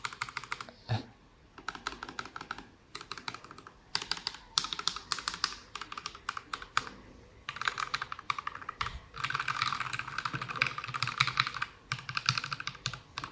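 Mechanical keyboard fitted with thick PBT Cherry-profile keycaps on Akko CS Matcha switches, typed on in quick runs of keystrokes with short pauses, the longest and densest run near the end.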